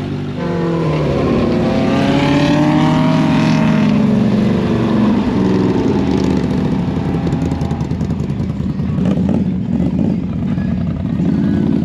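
Side-by-side UTV engine revving, the pitch climbing over the first couple of seconds and then wavering up and down with the throttle.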